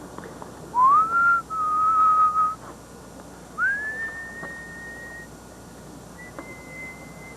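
A person whistling three long held notes, each sliding up into pitch and climbing from note to note, with a fainter high note near the end.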